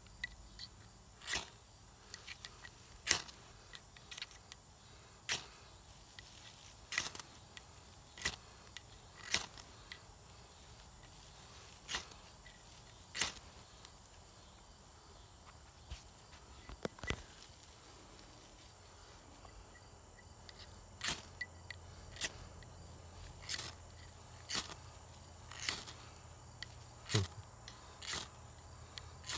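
UST SparkForce ferro rod scraped hard with its striker again and again, about twenty quick, sharp scrapes a second or more apart, with a lull midway. Sparks are being thrown into a bird's-nest tinder bundle that is a little damp and has not yet caught.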